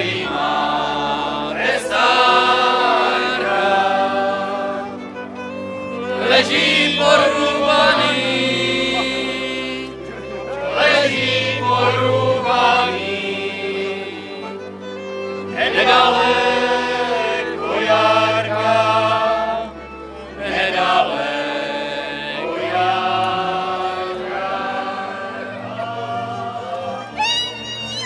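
Group of voices singing a Moravian folk song together, accompanied by a folk string band of fiddles and double bass.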